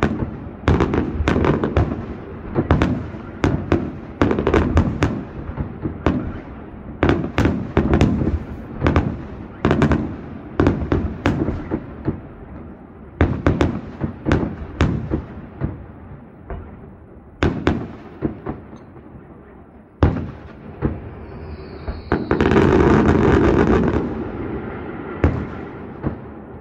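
Fireworks display: a rapid, irregular series of shell bursts, each a sharp bang with a trailing rumble. The bangs thin out toward the end, and about 22 seconds in there is a louder continuous noise lasting a couple of seconds.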